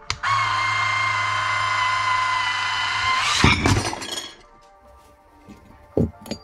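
Electric tipping motor of a Huina 1575 RC dump truck whining steadily for about three seconds as the bed tips up. Then a stack of discs slides off the bed and clatters down, followed by a few sharp clicks near the end.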